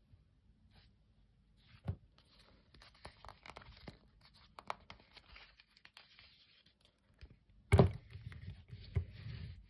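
Leather watch strap and its metal buckle being handled, giving rustling and scraping with small clicks, a knock about two seconds in and a louder knock near the end.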